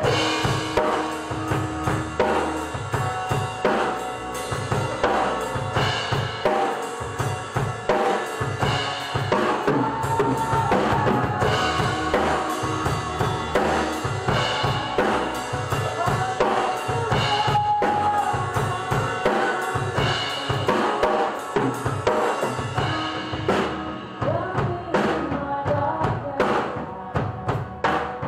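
Contemporary worship band playing live: a full drum kit with kick and snare keeping a steady beat under guitar and keyboard.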